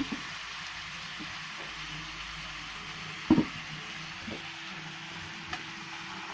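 Meat sizzling in a frying pan over a wood fire, a steady hiss, with one sharp knock about three seconds in and a couple of lighter clicks after it.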